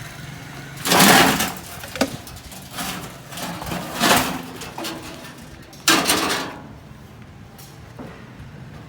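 Metalworking blows in a workshop: three heavy strikes a few seconds apart, each with a short rough tail, and a few lighter knocks between them.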